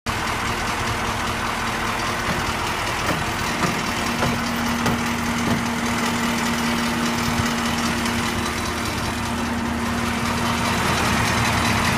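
Diesel truck engine idling steadily, with a steady hum that comes up about four seconds in and a few faint knocks.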